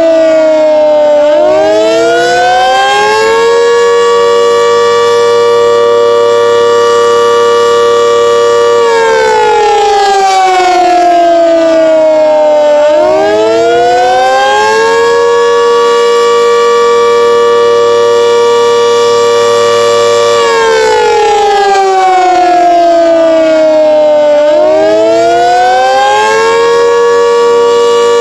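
Sentry 3V8-H outdoor warning siren sounding the attack signal. It is a loud wail of several tones at once that slides down over a few seconds, swoops back up and holds high for about five seconds. The cycle repeats roughly every eleven to twelve seconds, with low points about a second in, near the middle and near the end.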